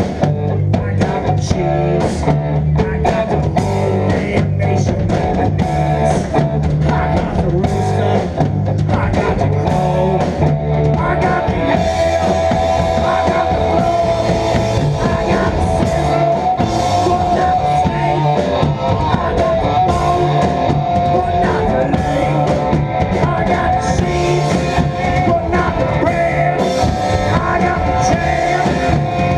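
Live rock band playing an instrumental passage with drums and cymbals, a single high note held over the band through the second half.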